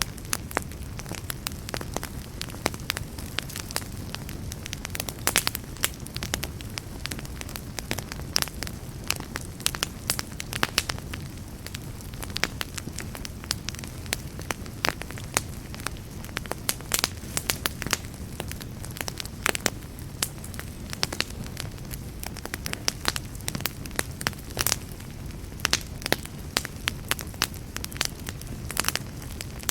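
Wood campfire burning and crackling, with irregular sharp pops and snaps, several a second, over a steady low rumble of the flames.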